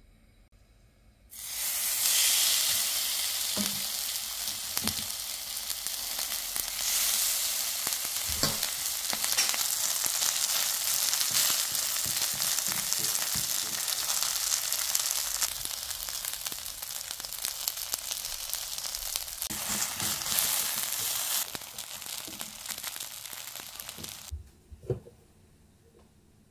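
Chive-and-shrimp pancake batter sizzling in hot oil in a stainless steel frying pan. The sizzle starts suddenly about a second in and cuts off a couple of seconds before the end, followed by a few light knocks.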